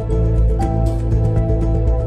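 Background music, a soft new-age-style track: sustained held notes over a deep steady bass, with light ticking percussion.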